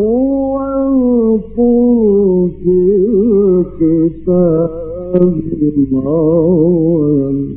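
A man chanting Quranic recitation in the melodic mujawwad style, holding long ornamented notes with quick trills and breaking off briefly a few times.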